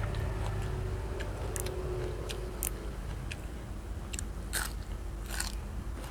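A person chewing food close to the microphone, with scattered wet mouth clicks and small crunches.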